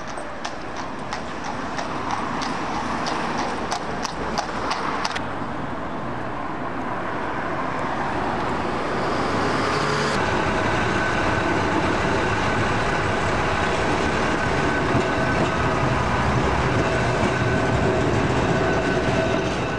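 Open-top double-deck bus running, heard from its open top deck, with traffic noise around. For the first five seconds there are regular sharp clicks, about two a second. From about halfway a steadier, louder hum takes over, with a few held tones in it.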